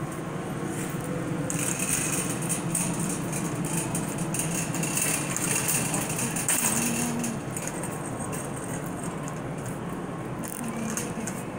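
Metal shopping cart rattling and clattering as it is rolled over a concrete store floor, over a steady background hum. The rattle is loudest from about a second and a half in until about seven seconds in, then drops back.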